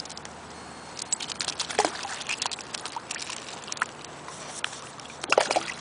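Wet dachshund's paws pattering and splashing through mud and shallow water: an irregular run of small clicks and splashes.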